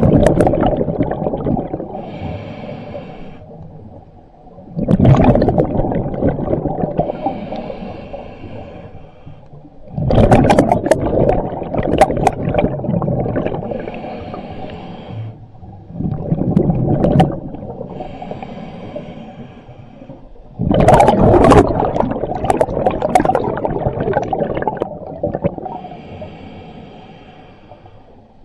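Scuba diver breathing through a regulator, heard underwater: a soft hissing inhale, then a sudden loud rush of exhaled bubbles that fades away, repeating about every five seconds.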